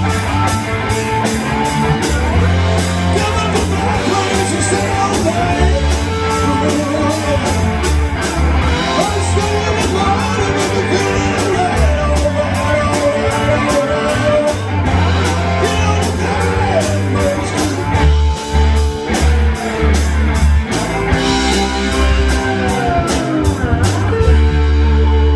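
Rock music with electric guitar, bass and a steady drum beat, with some singing, and sliding guitar notes near the end.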